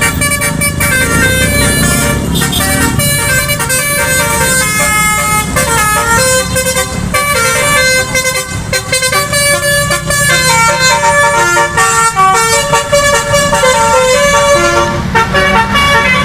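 Basuri bus's telolet horn, a multi-tone musical air horn, playing a tune of held notes that step from pitch to pitch, over the steady noise of the bus.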